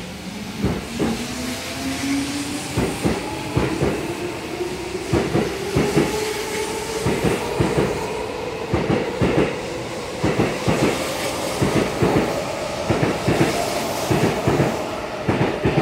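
Tokyo Metro 07 series electric train accelerating away from a platform. Its traction motors whine in a steadily rising tone as it gathers speed, over the clacks of wheels crossing rail joints, which come faster and faster.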